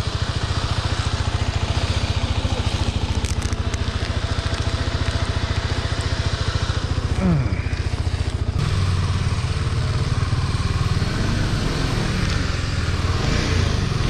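Single-cylinder adventure motorcycle engine running under way, its firing pulses steady and even. About two-thirds of the way in it grows fuller and a little louder.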